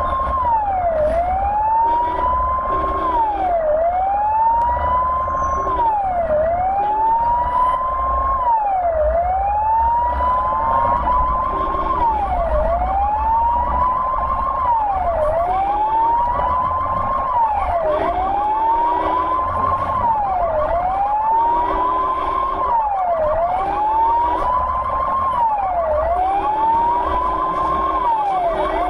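Ambulance siren in wail mode, heard from inside the vehicle: each cycle climbs in pitch over about two seconds, then drops back sharply, about every two and a half seconds. Short vehicle-horn honks come in at irregular intervals over it, with engine and road rumble underneath.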